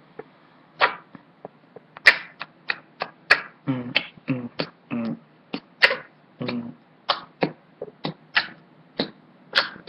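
A boy beatboxing a hip-hop beat with his mouth: sharp clicking kick and snare sounds about three a second, mixed with short hummed bass notes. It starts with a few soft clicks and the full beat gets going about a second in.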